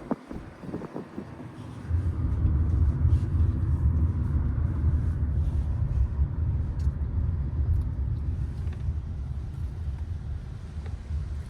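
Car driving, heard from inside: a steady low rumble of road noise that comes up suddenly about two seconds in, after a few light knocks.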